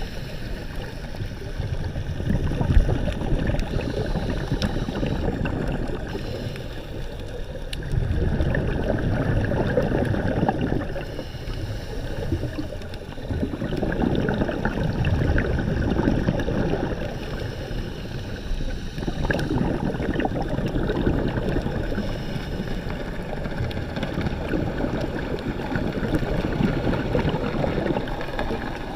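Muffled rushing and gurgling sea water, a low wash that swells and fades every few seconds, with a few faint clicks.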